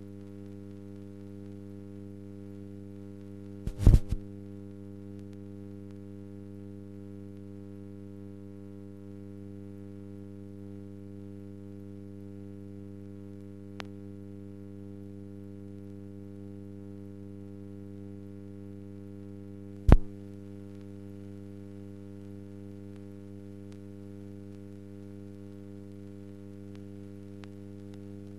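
Steady electrical mains hum, several even tones stacked one above another, with no other sound behind it. A short cluster of loud clicks comes about four seconds in, a faint tick near the middle, and a single sharp click about twenty seconds in.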